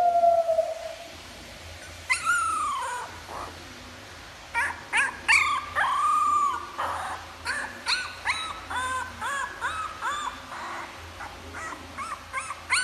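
Young puppy whimpering and yipping: a longer falling whine about two seconds in, then a run of short rising-and-falling yips, several a second, through the second half.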